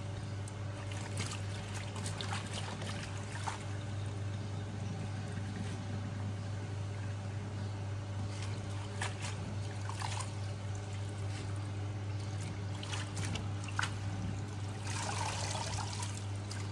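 Tap water running into a bowl of lettuce in a stainless steel sink, with hands swishing and lifting the wet leaves: short splashes and drips now and then, and a louder stretch of splashing near the end. A steady low hum lies underneath.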